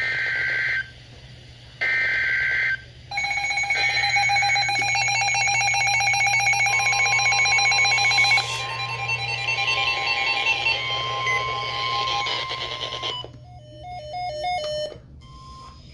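Emergency Alert System broadcast tones: two raspy bursts of digital header data of about a second each, then a loud alert tone lasting about ten seconds. A few short stepping beeps follow near the end. These tones open a new alert, here the tornado warning that follows.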